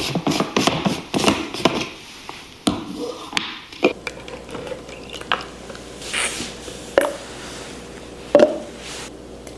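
Kitchen handling sounds: a quick run of light taps and clicks for the first few seconds, then a few separate knocks and a soft swish.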